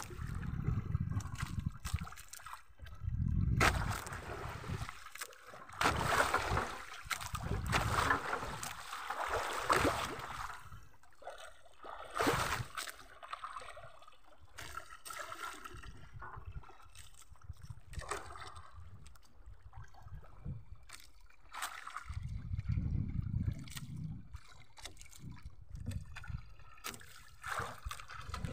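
Sea water sloshing and splashing against the side of a small outrigger boat while a fishing line is hauled in by hand. Gusts of wind buffet the microphone at the start and again near the end.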